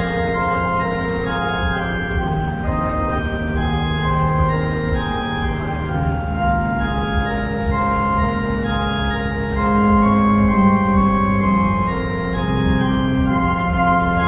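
Music of slow, held organ-like chords, the notes shifting every second or two.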